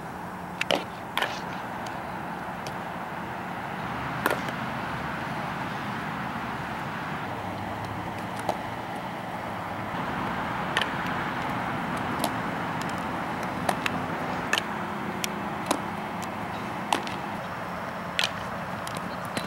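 Steady outdoor background noise with about a dozen sharp knocks scattered irregularly throughout, the pops of a softball being batted and smacking into a fielder's glove.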